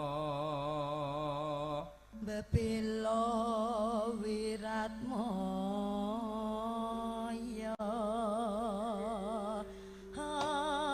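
A man's sung held note with vibrato ends about two seconds in. Then a Javanese sinden sings slow, drawn-out solo phrases with heavy vibrato, with a faint steady held note under her voice.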